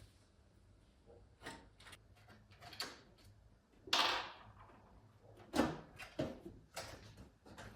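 Computer hardware being handled by hand: scattered clicks and light knocks, a louder scraping rustle about four seconds in, then a few sharper clacks.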